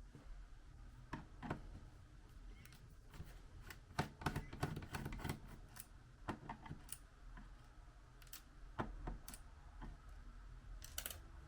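Irregular light clicks and taps of a small screwdriver and screws on a laptop's plastic bottom cover as the base screws are taken out. The clicks bunch together a few seconds in and again near the end.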